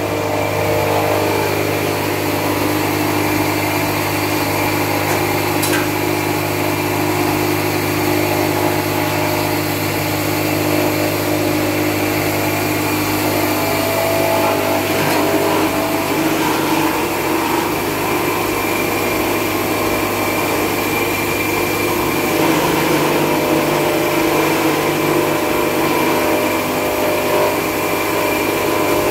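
Small gasoline engine running steadily at a constant speed, driving a forage chopper that is cutting forage for silage.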